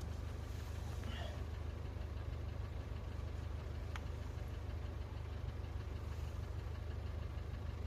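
A steady low mechanical hum, engine-like, with a single sharp click about four seconds in.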